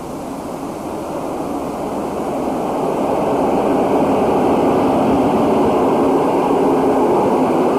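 Passenger train approaching and running past on the tracks. Its running noise grows louder over the first four seconds, then holds steady and loud.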